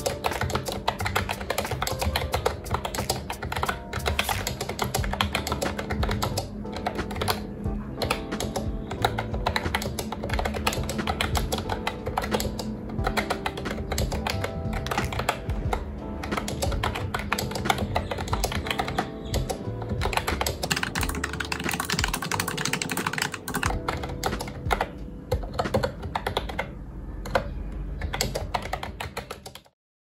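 Fast, continuous typing on an Actto BTK-03 retro keyboard with round typewriter-style keycaps, a dense patter of key clicks over soft background music. Both cut off just before the end.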